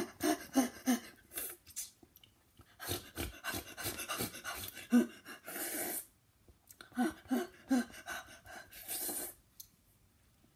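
A teenage boy panting, gasping and crying out in short pained sounds, with heavy breathy exhales between, as the extreme sourness of three sour candies in his mouth at once burns. He goes quiet about nine and a half seconds in.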